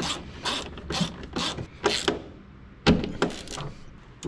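Ratchet wrench clicking in short strokes as the freshly cleaned engine ground-strap connection is tightened back down. About two strokes a second, a pause, then a quick few more.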